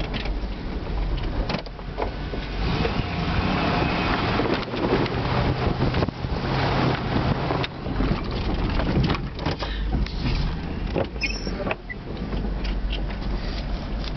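Plow truck (1999 3/4-ton Suburban) running, heard from inside the cab, while it plows snow. A rushing noise swells through the middle, with scattered knocks and rattles throughout.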